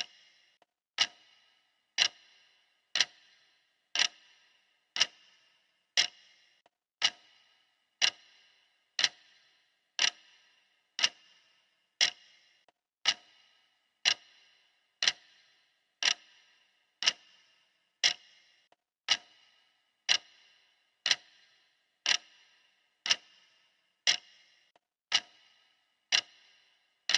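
Clock ticking steadily, one sharp tick each second, each with a short ringing decay: the countdown timer marking off the seconds.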